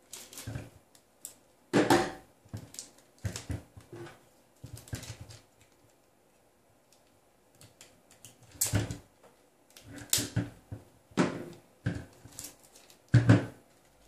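Kapton tape being peeled off its roll and cut with a folding knife, then pressed down by hand: a series of short, scratchy bursts, with a lull of about two seconds midway.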